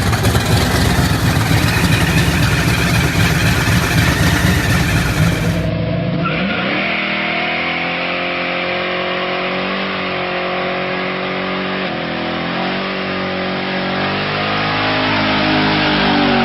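Muscle car engine running loud and rough at high revs. About six seconds in there is a sudden cut to another car's engine held at high revs, its pitch wavering slightly.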